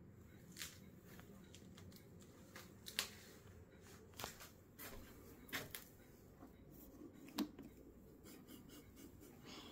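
Near silence: a quiet room with about half a dozen faint, short clicks and rustles scattered through it, the sharpest about three seconds in and again past seven seconds.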